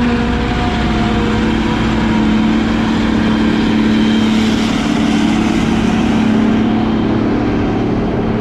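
Diesel truck engine running steadily while driving, heard from inside the cab: an even drone over road and engine noise.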